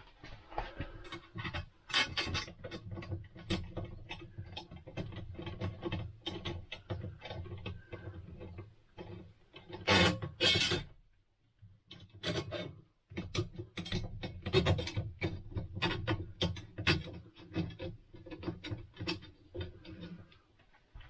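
Mounting bolts of a motorhome air conditioner being started by hand: repeated rubbing, scraping and light clicks of metal and plastic parts being handled, with a short lull about eleven seconds in.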